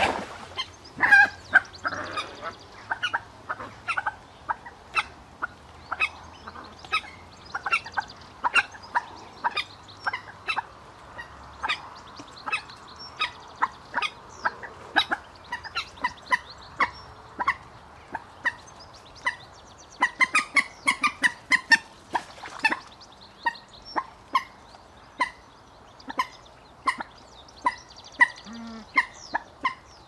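Common moorhen calls: a steady series of short, sharp calls, about one or two a second, with a quicker cluster about two-thirds of the way through.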